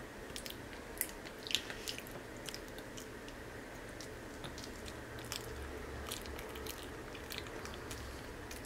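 Capuchin monkey eating banana: soft, irregular chewing and mouth clicks, with a couple of sharper smacks about a second and a half in.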